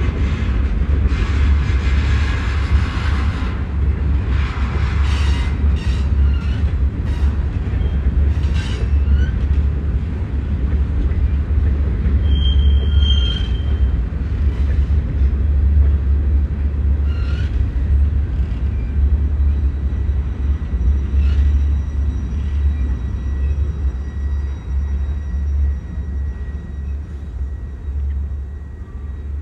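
Freight train rolling past with a steady low rumble, wheels clicking irregularly over rail joints and switches in the first ten seconds. A brief high squeal comes about twelve seconds in, and the sound eases off toward the end.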